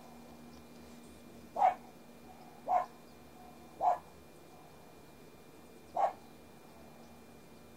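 Four short animal calls, each a single clipped note, spaced one to two seconds apart.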